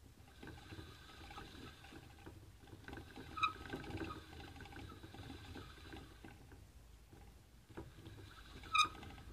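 A deer mouse running on a plastic saucer-style exercise wheel: the spinning wheel makes a faint, steady rattling whir that eases off briefly after about six seconds and picks up again. Two short, sharp ringing clicks stand out, about three and a half seconds in and near the end.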